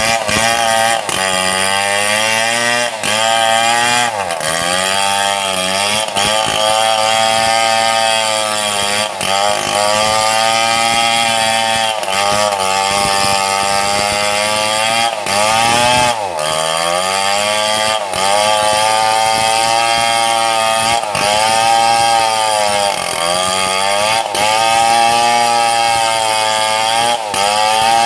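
Two-stroke chainsaw running at high revs while cutting lengthwise through a mahogany log. The engine pitch dips and climbs back again and again as the chain bogs under load in the cut.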